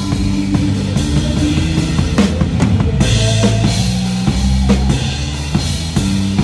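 Drum kit played in time with a live band: kick drum and snare strokes over held bass notes and keyboard chords.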